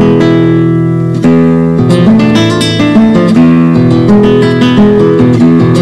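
Background music: Spanish-style acoustic guitar playing strummed chords.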